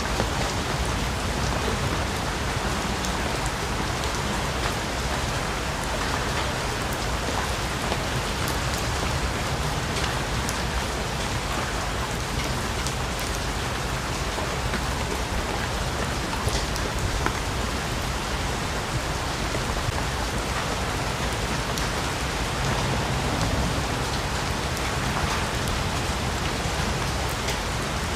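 Steady rainfall in a rainforest, a dense even hiss of rain with many individual drops pattering on leaves.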